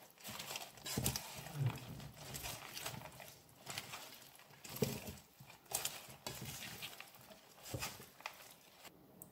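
A bare hand squeezing and turning raw Malabar spinach leaves through spiced raw red lentils in an aluminium pot: irregular crackling, rustling and squishing of the leaves, in uneven short strokes.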